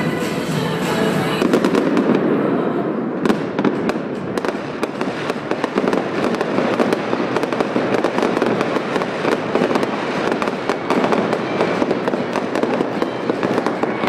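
Fireworks going off in quick succession, a dense stream of bangs and crackles with no break.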